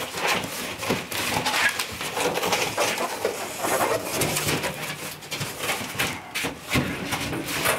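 Cardboard shipping box and styrofoam packing being handled and moved about: scraping and crushing, with repeated knocks.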